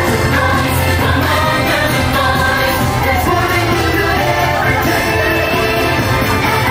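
Loud, steady parade music with singing from a passing Halloween cavalcade, over a steady bass line.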